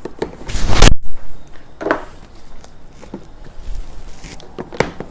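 Kitchen handling noises while spices are measured out: a loud rustling swell that cuts off abruptly about a second in, then a few light taps and clicks.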